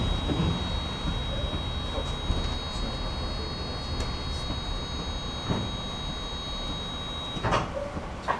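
Electric tram running, heard from on board: a low rumble under a steady high electrical whine that cuts off about seven and a half seconds in, followed by two sharp clunks.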